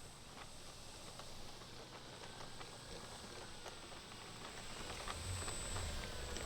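Faint whine of a distant radio-controlled plane's electric motor, its pitch falling slowly as it comes around, over light outdoor clicks. A low rumble comes in near the end.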